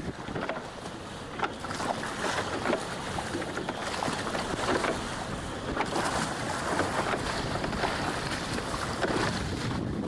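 Wind buffeting the microphone on an open rowing boat at sea, with water splashing and slapping against the hull in irregular short bursts.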